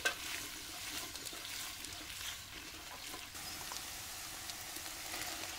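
Diced onions and carrots sizzling in hot fat in a cast-iron cauldron: a steady hiss with many small crackles and pops.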